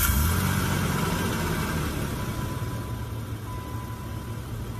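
Jeep SUV's engine idling just after being started, a steady low hum that eases and grows gradually quieter. It is the first run after an oil change, pumping the new oil into the fresh filter.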